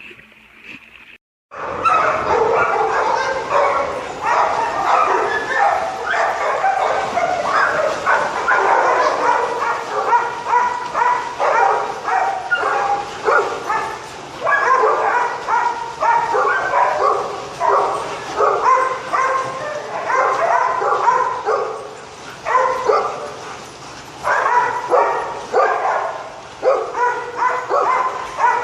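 Dog barking and yipping over and over, several short calls a second, starting about a second and a half in.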